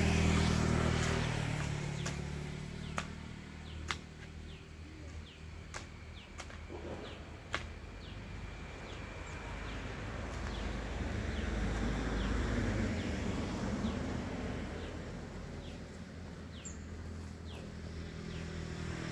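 Road traffic passing, a low rumble that swells and fades twice, with a few sharp clicks of a hand hoe striking the soil between about three and eight seconds in, and faint short high chirps.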